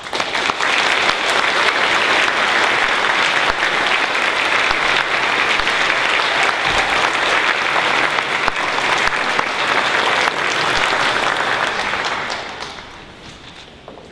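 Audience applauding, starting abruptly as the choir's singing ends, holding steady, then dying away about twelve seconds in.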